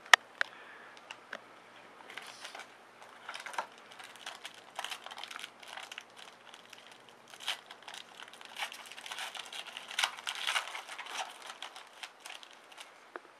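Trading-card pack wrapper crinkling and tearing as it is opened, with irregular crackles and clicks of the cards being handled.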